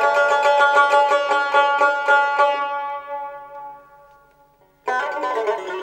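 Background music on a plucked string instrument: a quick run of picked notes that fades away about four seconds in, then starts up again sharply about a second later.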